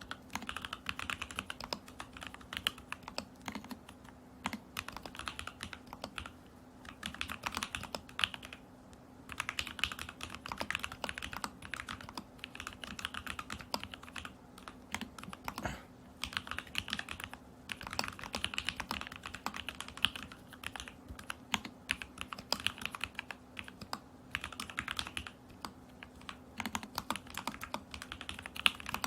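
Typing on an Alice-layout mechanical keyboard in a stacked acrylic case: lubed and filmed Lavender switches on a tape-modded Lumos PCB, with Polycaps Whale keycaps. The keystrokes come in quick bursts of a few seconds, broken by short pauses.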